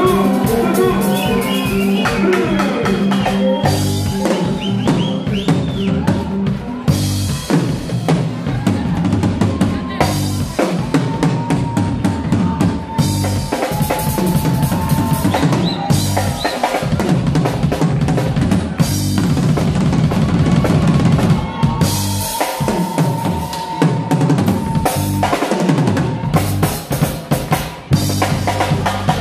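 Drum kit played hard: a busy beat with fills, snare and bass drum hits, and cymbal crashes. Under it run a band's bass line and held tones, and the low end drops out briefly for a break about two-thirds of the way in.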